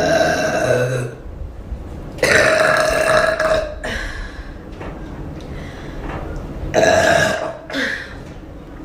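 A woman burping loudly, again and again: a long burp that ends about a second in, another long one starting at about two seconds, and a third near seven seconds followed by a short one.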